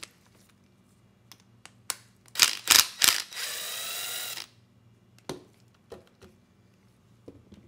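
Cordless air blower forcing air through a small-engine carburetor's float bowl and jet from a straw nozzle: three short blasts, then a steady hissing blast of about a second that cuts off sharply, with light clicks of handling before and after. The blast sprays liquid out of the bowl onto the towel, which the owner takes for water in the carburetor.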